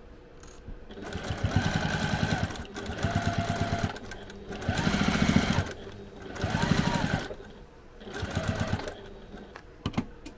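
Electric sewing machine stitching a quarter-inch seam through several layers of fabric, running in about five short bursts with brief stops between them, as the seam is back tacked and sewn. A single click near the end.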